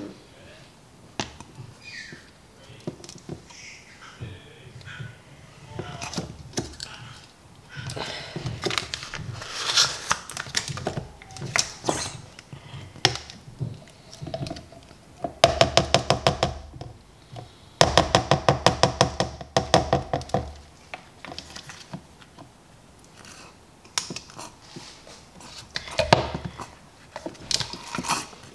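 Plastic plunger of a Fill N Squeeze baby-food pouch filler being worked in a tub of puree: scattered taps and knocks, with two spells of rapid pulsing squelch about halfway through. The filling fails because trapped air clogs the pouch.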